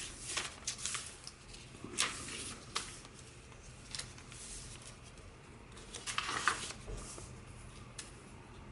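Paper pages of a handmade junk journal rustling and flapping as they are turned and handled, with a few light taps. The handling comes in separate spells, the longest about six seconds in.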